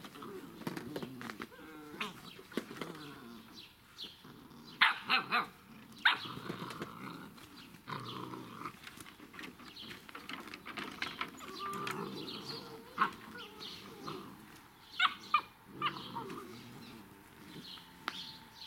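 Irish Setter puppies, seven weeks old, barking and yapping in play, in short sharp outbursts: three or four in quick succession about five seconds in, and another quick pair about fifteen seconds in.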